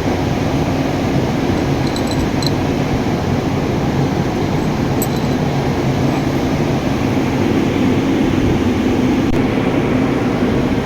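A steady machine drone with a low hum, with two light metallic clinks about two and five seconds in.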